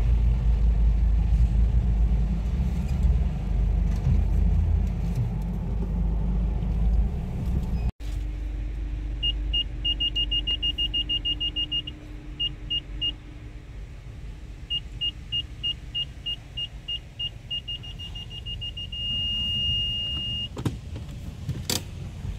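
A car driving slowly with a low rumble from engine and tyres, then its reversing parking-sensor beeping at a high pitch in quick runs that come faster and merge into one continuous tone, the sign that the car has backed close to an obstacle. A sharp click follows near the end.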